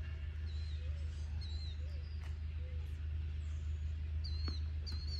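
Small birds chirping repeatedly over a steady low hum, with a couple of faint knocks.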